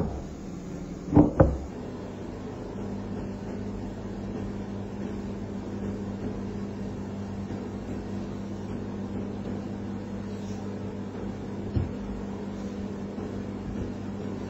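A few sharp knocks, then a steady low machine hum.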